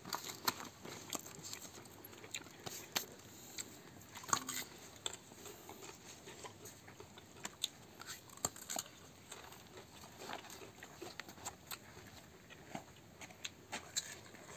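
A person biting into and chewing a slice of fresh fruit, heard as scattered, irregular short clicks and crunches.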